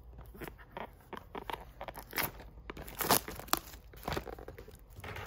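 Plastic shrink-wrap on a small boxed pair of wireless earbuds crinkling and tearing as it is cut open with small snips and peeled off, in irregular crackles that are loudest in the middle.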